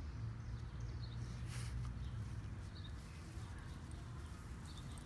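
Faint outdoor background: a steady low rumble with a small bird chirping every second or two, and a short rustle of grass about a second and a half in as the beagle noses through it.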